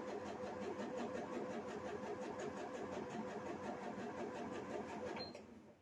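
Elna 570A sewing machine running, stitching at a steady even rhythm, and stopping shortly before the end.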